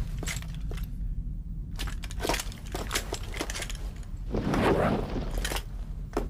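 Scattered short cracks and clinks over a steady low rumble, with a louder swish about four and a half seconds in as a heavy cloak swings round.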